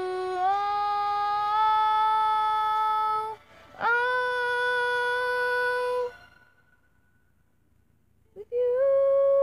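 A woman's voice singing long, held wordless "ooh" notes, each stepping up a little in pitch. A short break comes a little after three seconds. The next note stops about six seconds in, and after two seconds of near silence a new, higher note begins near the end.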